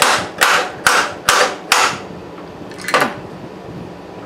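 Ball-peen hammer blows on a mold holding a cast HDPE block, knocking the plastic loose from the mold: about five sharp strikes, roughly two a second, then a pause and one more strike about three seconds in.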